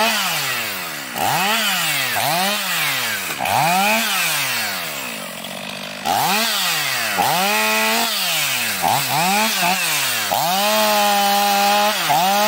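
STIHL MS 500i two-stroke chainsaw cutting branches off a felled dry pine, revving up and dropping back over and over, about once a second. There is a short, quieter, steadier stretch in the middle before the revving resumes.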